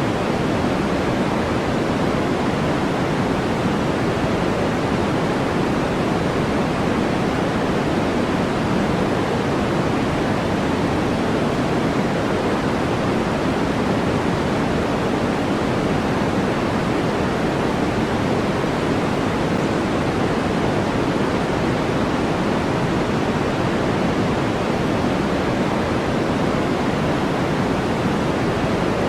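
Steady synthetic noise of the kind sold as white noise for sleep: an even, unchanging hiss with no rhythm or events, weighted toward the lower middle pitches rather than bright and sharp.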